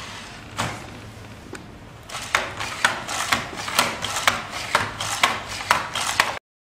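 NAO humanoid robot walking on a wooden tabletop: its feet and joints make sharp taps, about four a second, starting about two seconds in and stopping suddenly near the end.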